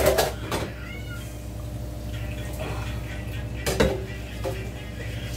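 Dishes and utensils clattering in a kitchen sink during hand washing-up: two sharp clinks, one at the start and one about four seconds in, over a steady background hum.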